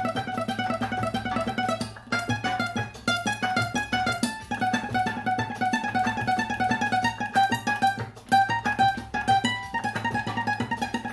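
Flamenco guitar playing fast runs of single plucked notes, the phrase broken by short pauses about two, four and eight seconds in.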